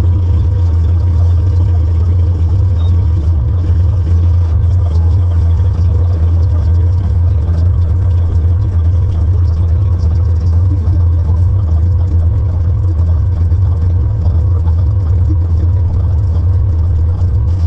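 Tractor engine running at a steady speed: a loud, even, low drone that does not change.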